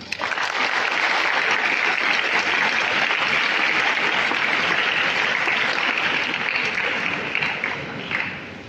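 Audience applauding, starting suddenly and holding steady, then dying away near the end, marking the close of a choral speaking performance.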